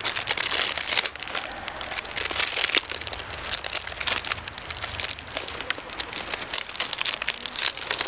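Plastic popsicle wrappers crinkling as they are opened and handled: a dense, continuous run of fine crackles.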